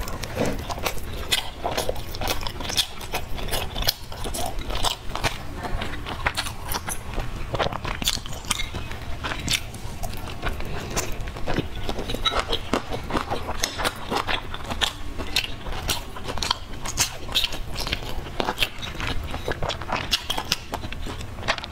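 A person biting and chewing mouthfuls of food close to the microphone, with many short mouth clicks and smacks throughout.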